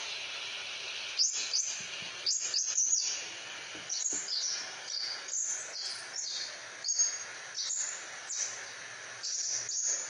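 Crimson sunbird singing: short, high, sharp chirps, one to three a second, over a steady hiss.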